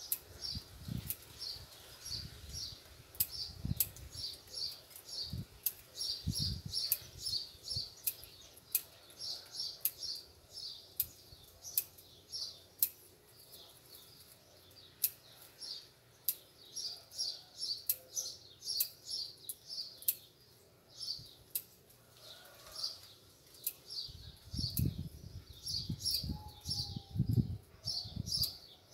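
Small birds chirping in quick repeated bursts, mixed with sharp clicks of bonsai pruning scissors snipping branch tips. A few low thumps come near the start and again near the end.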